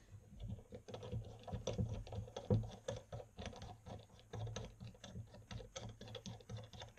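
Small irregular metallic clicks and taps, several a second, as a banjo bleed bolt is threaded by hand into the bleed port of a motorcycle brake caliper.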